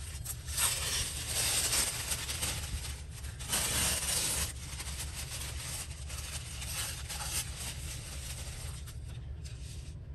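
Paper rustling and sliding as sheets are handled, in two louder spells in the first half, over a steady low hum.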